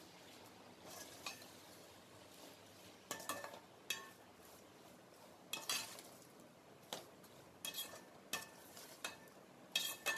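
A metal spatula scraping and clinking against a stainless steel pot as chopped tomatoes and onions are stirred while sautéing, in irregular strokes about once a second that are loudest near the end, over a faint sizzle of frying.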